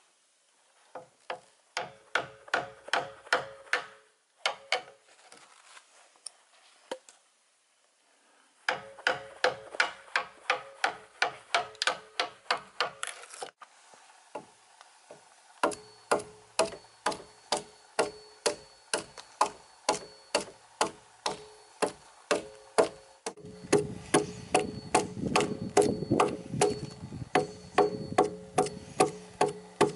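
Claw hammer striking a steel chisel driven into a log, cutting a groove: sharp, evenly spaced blows about two to three a second, each with a short metallic ring, in several runs with brief pauses between them.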